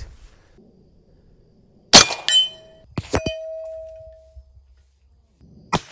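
Shots from a BinTac S45 .45-calibre semi-auto big-bore air rifle: one sharp report about two seconds in, a quick pair of cracks a second later, and another near the end. Each is followed by a lingering metallic ring from a steel gong target.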